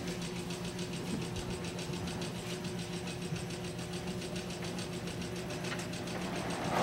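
Steady mechanical hum with a fast, even ticking, as of a motor running without letting up. A brief louder rush of noise comes at the very end.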